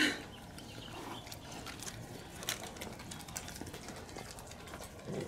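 Dogs eating dry food from bowls: scattered small clicks and crunches of kibble, with one louder knock at the very start.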